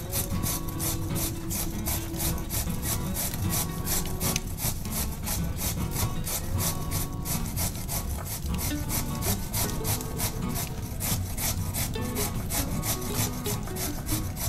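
A raw carrot being grated on a stainless-steel cone grater: rapid, even rasping strokes at about four a second.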